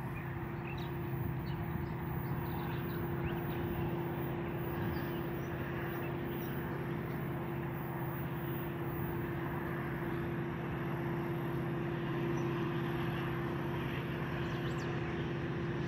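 Diesel locomotives of an approaching BNSF coal train, still some way off: a steady engine drone with a constant hum, growing slightly louder.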